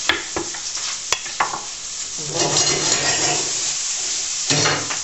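Radicchio frying in a pan with a steady sizzle, while a kitchen knife clicks several times against a plastic cutting board in the first second and a half as cherry tomatoes are sliced. Louder rustling comes midway and again near the end.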